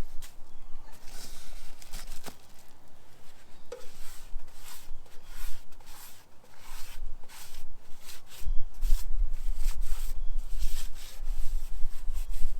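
Repeated rubbing strokes of wiping and scrubbing as an engine part is cleaned out by hand, one to two strokes a second. A low rumble joins in about two thirds of the way through.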